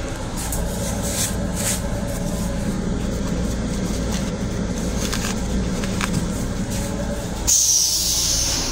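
Steady low rumble of a moving M7 commuter rail car with a few light knocks, then about seven and a half seconds in the onboard toilet flushes with a sudden loud hiss that lasts to the end.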